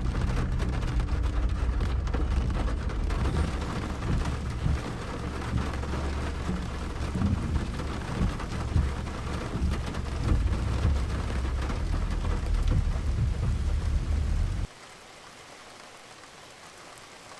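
Loud, steady rush of falling water with a deep rumble underneath. It cuts off suddenly near the end, leaving a much fainter steady hiss.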